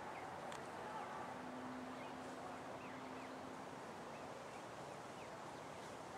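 Faint outdoor background hush with a few soft, short, high bird chirps, and a faint low steady hum for a couple of seconds starting about a second in.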